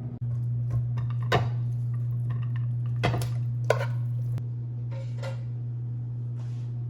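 Dishes and utensils clinking and scraping, with a few sharp clinks about a second and a half in and around three to four seconds in, over a steady low hum.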